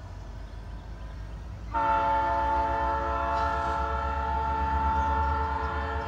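Norfolk Southern freight train's locomotive air horn sounding one long chord of several notes, starting suddenly about two seconds in and held steady, over the low rumble of the rolling train.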